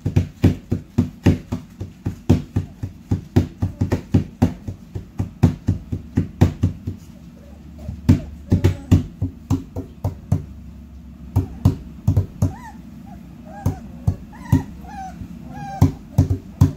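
Hands banging on a plywood whelping-box wall, a loud irregular run of knocks about three a second that thins out with pauses in the second half. From about halfway through, puppies whimper and yip between the knocks.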